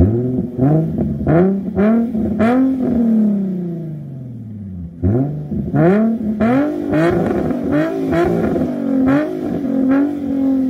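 Nissan 350Z's V6 engine being revved while parked, heard through its exhaust: a run of quick throttle blips, each climbing a little higher, then the revs falling slowly back toward idle, done twice.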